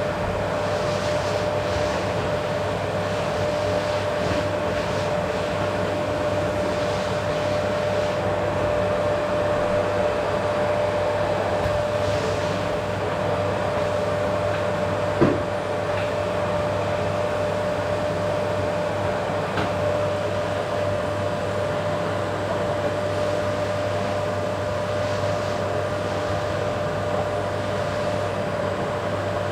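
Vacuum cleaner running steadily on a wooden floor, a constant motor whine over the rush of air. One sharp knock about halfway through.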